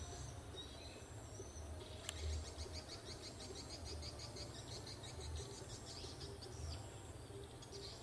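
Javan kingfisher (tengkek buto) calling: a few scattered high chirps, then from about two seconds in a long, fast rattle of sharp high notes lasting about six seconds.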